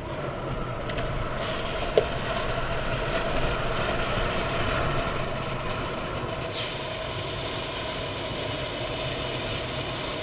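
Interior engine, road and wind noise of a Saab 9-3 2.0t police car running at highway speed, a steady drone with a low engine hum. A single short sharp click about two seconds in, and a brief hiss about six and a half seconds in.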